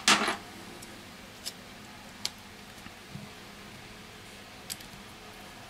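Small handling noises from a smartphone being worked on by hand: a short rustle at the start, then a few faint, sparse clicks and a soft tap as the phone and its flex cable are handled.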